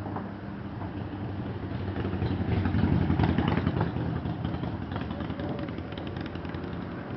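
An engine running steadily, with clattering and knocking that swells about two to four seconds in.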